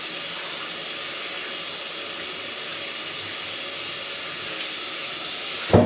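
Bathroom sink tap running steadily, water splashing over hands being washed. Near the end there is a thump and the water cuts off suddenly.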